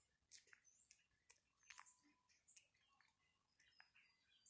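A Java macaque grooming a person's hair at close range: faint, irregular clicks and crackles as it picks through the hair, with a few short high chirps between them.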